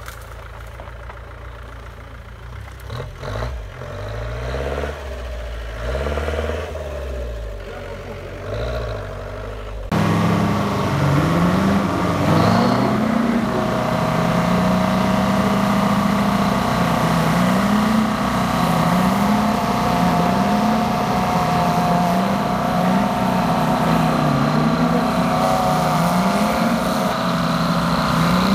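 An off-road 4x4's engine revs in bursts. About ten seconds in the sound cuts to two 4x4s, a UAZ-469 and a Nissan Patrol, pulling against each other on a tow strap in a tug-of-war. Their engines hold high revs under load, louder and steady, with the pitch rising and falling over and over.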